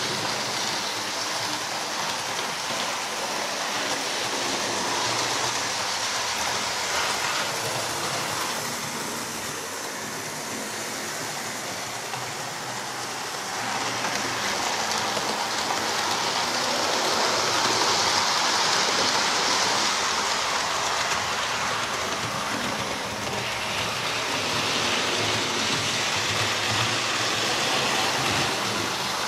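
Hornby OO gauge Class 43 HST model train running around a layout track: a steady rushing rumble of the wheels and motor on the rails. It grows louder and softer as the train comes nearer and moves away, at its loudest past the middle.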